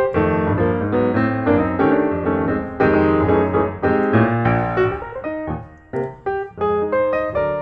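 Background piano music, a quick run of notes that thins out briefly near the end.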